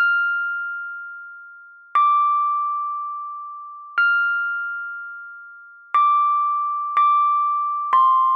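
Sparse music of single ringing notes. One is struck every two seconds, then one a second near the end, six in all, each fading slowly.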